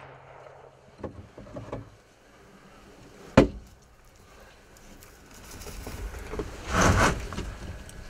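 Knocks and handling noise inside a wooden hunting blind: a few faint clicks in the first two seconds, one sharp loud crack about three and a half seconds in, and a longer, louder scraping rush about seven seconds in.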